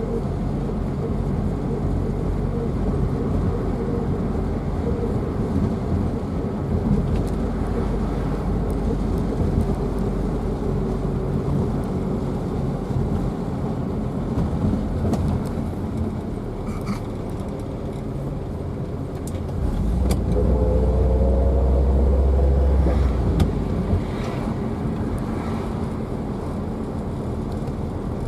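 Car driving on the road: steady engine and road noise. About twenty seconds in, a louder low rumble with a rising engine note lasts a few seconds.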